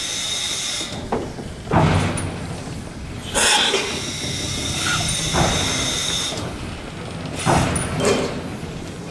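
Steam locomotive moving slowly: steam hissing in two long spells with a steady high whistling note in it, and a few heavy chuffs or clanks.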